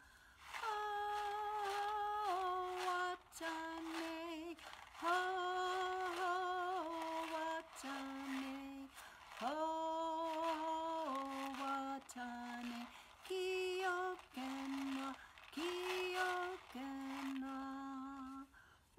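A woman singing a slow AmerIndian lullaby in long held notes that step up and down in pitch, phrase by phrase.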